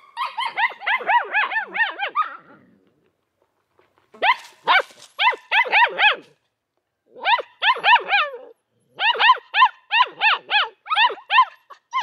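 Puppies yapping: short, high-pitched yaps, several a second, in quick runs with brief pauses between the runs.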